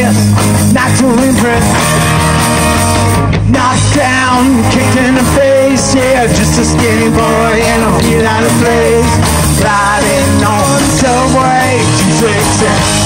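Live rock band playing loud and steady: an electric guitar lead over bass and drums, amplified through stage amps.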